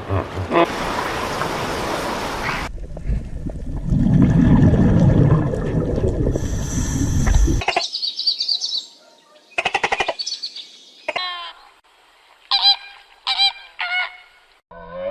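Short bird calls, single and in quick runs, in the second half, after a stretch of hiss and a loud low rumble in the first half.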